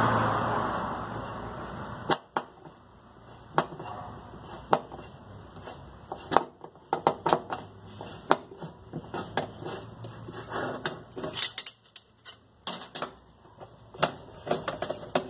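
Socket wrench working the bolts of a washing machine's steel mechanism plate: a long series of sharp, irregular metallic clicks and clinks, some in quick runs. A fading rush of noise fills the first couple of seconds.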